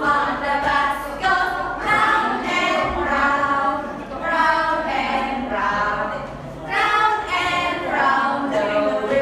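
A group of voices, mostly women's, singing a children's song together with held notes and no instrumental backing.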